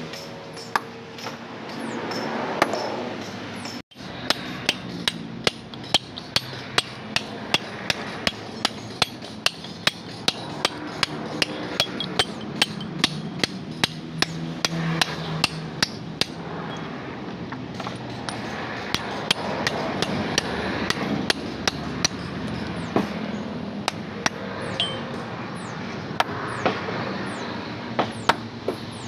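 Hammer striking a hand-held steel chisel against a stone boulder, a steady run of sharp metal-on-stone strikes about two to three a second, chipping a groove to split the rock. The strikes break off briefly about four seconds in.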